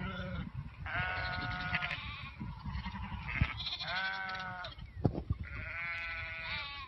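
Lambs bleating: three long calls, each about a second, while they are held on their backs in a handling cradle. A couple of sharp knocks come between the second and third calls.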